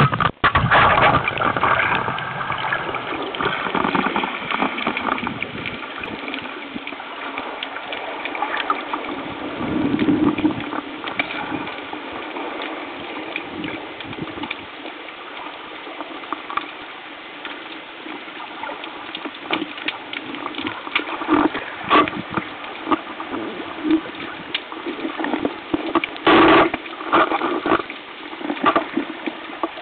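Underwater sound picked up by a camera on a speargun: a steady rush of water with many scattered clicks and knocks. There are louder swells of rushing water about ten seconds in and again near the end.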